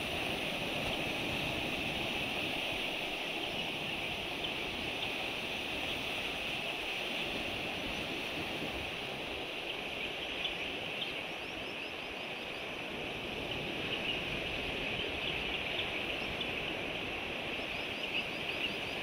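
Sea surf washing steadily over a rocky shore, with a constant high hiss over it and a few faint high chirps about halfway through and near the end.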